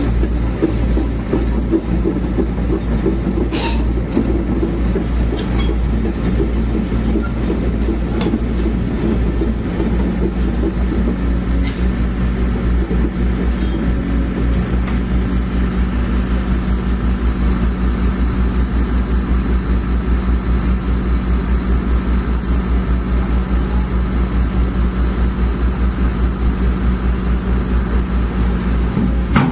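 Komatsu PC130F excavator's diesel engine running steadily as the machine drives along on its steel tracks, with a fast, even clatter from the running gear. Several sharp clanks come in the first dozen seconds.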